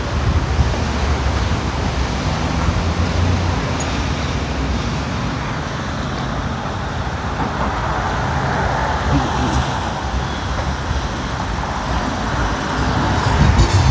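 Street traffic: cars running and passing, a steady low rumble with tyre hiss.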